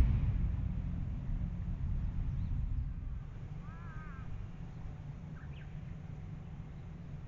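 A steady low rumble, heavier in the first three seconds, with a short run of bird calls about four seconds in and a couple of faint chirps soon after.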